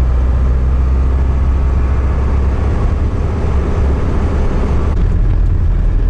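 Classic car driving, heard from inside the cabin: a loud, steady low rumble of engine and road noise.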